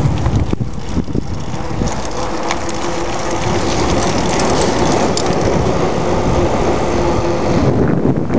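Wind buffeting the microphone and road noise from a bicycle ride on a paved street, with knocks and rattles from the handheld camera and bike. A steady low hum joins in for a few seconds in the middle.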